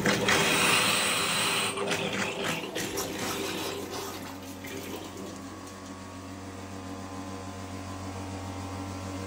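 Water gushing and spattering out of a tap while household water pipes are being flushed through, loudest in the first couple of seconds. Under it runs a steady low machine hum that carries on as the splashing eases.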